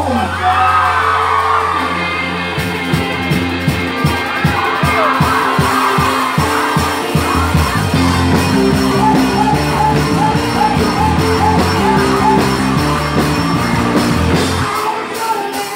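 Live rock band playing on stage, with electric guitars, bass and voices singing and shouting over the music. A steady beat comes in about two and a half seconds in, and the low end drops out briefly near the end.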